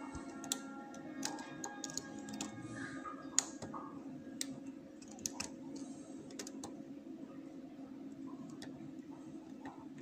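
Small irregular metallic clicks and ticks of a lock pick setting and scraping the pin stacks of a cylinder lock held under tension, most of them in the first seven seconds and the loudest about three and a half seconds in. Faint background music and a steady low hum run underneath.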